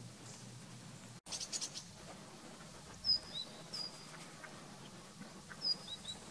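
Outdoor ambience with a songbird giving a few short, high chirps, each a quick downward-sliding whistle, from about three seconds in. A brief crackly rustle comes a little after a second in.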